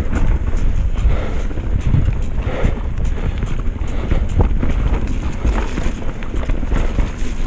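Mountain bike descending a wet, muddy downhill trail at speed: wind buffeting the camera microphone over the tyres on mud, with frequent short rattles and knocks from the bike over bumps.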